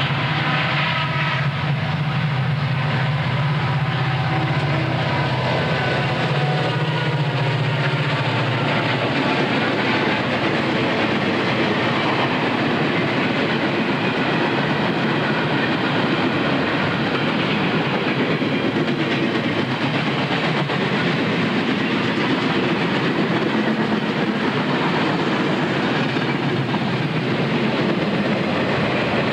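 Freight train passing: a low, steady drone of the lead diesel locomotives' engines for the first eight seconds or so, then the freight cars rolling by with a continuous rumble of steel wheels on rail and some wheel clatter.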